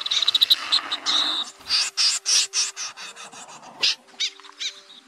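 Snipe calls: a fast run of sharp, harsh notes in the first second or so, then separate calls at about six a second that thin out toward the end, over faint held music notes.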